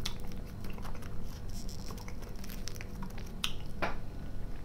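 Crinkling and crackling of a shiny foil candy wrapper being handled between the fingers, in many small clicks, with soft chewing underneath.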